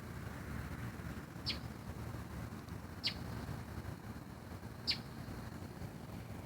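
A bird giving a short, sharp, high chirp three times, evenly spaced about every second and a half to two seconds, each dropping slightly in pitch, over a steady low rumble.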